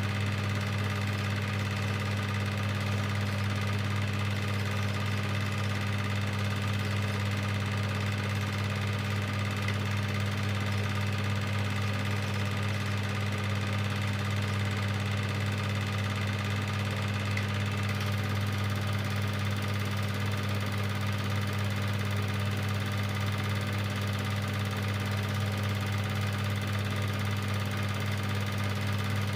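Cine film projector running with a steady, unchanging low hum.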